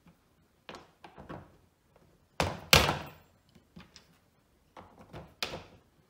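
Irregular hard knocks and clunks of plastic and metal as bolts are pushed through the lock's main part and the plastic wheelie bin lid, the loudest a sharp knock just before three seconds in.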